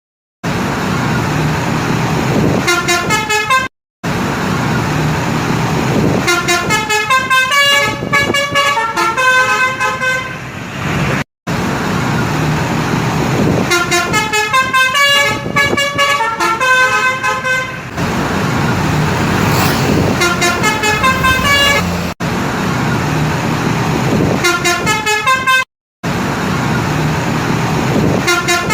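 Tour-bus telolet basuri multi-tone horns playing quick runs of short tooting notes, over the low running noise of bus engines and traffic. The sound breaks off abruptly several times where separate clips are joined.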